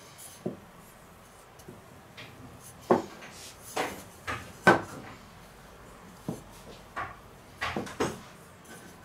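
About ten sharp, irregular knocks and clunks of hard kitchen objects being handled, the loudest a little under five seconds in.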